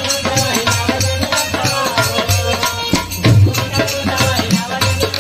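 Instrumental interlude of Bhojpuri birha folk music: a melody line over a regular hand-drum beat and rattling percussion, with no singing.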